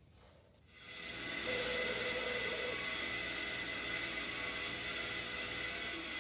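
Band saw coming on about a second in and running steadily with a hissing whir as it cuts through a walnut board.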